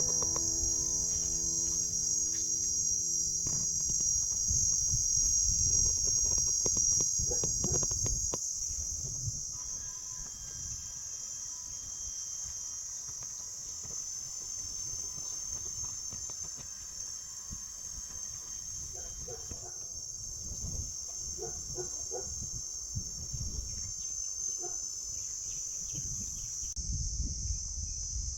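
Insects, crickets or cicadas, chirring in a steady, continuous high-pitched drone.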